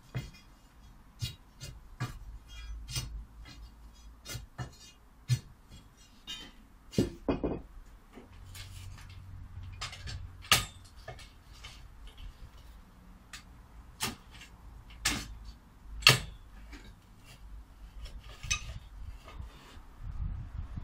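A long-handled metal digging tool striking stony soil and rubble in a post hole: irregular sharp metallic clinks and knocks, about one a second, the loudest about ten and sixteen seconds in.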